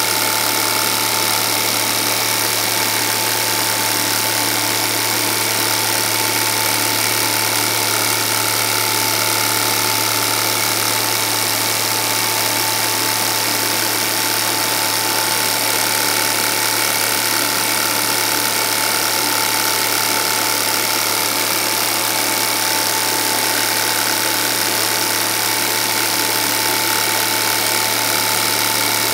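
Cine film projector running steadily: a continuous mechanical whir over a constant low hum.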